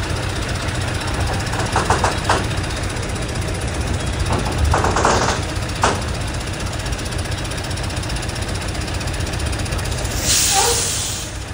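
Heavy truck's diesel engine running steadily with a low, knocking rumble, a few clanks partway through and a short hiss of air near the end.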